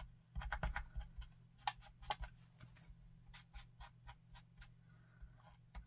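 Light, irregular clicks and taps of a Zig glue pen's tip dabbed along a small paper die cut on a cutting mat, with a few soft knocks as the piece is handled.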